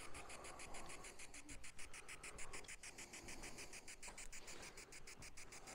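Spirit-box ghost-hunting app sweeping through static: a faint, even, rapid pulse of hiss, about six chops a second.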